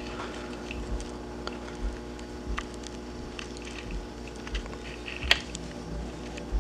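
Footsteps on carpet, soft thuds a little under a second apart, over a steady electrical hum from fluorescent ceiling lights. One sharp click stands out a little past the middle.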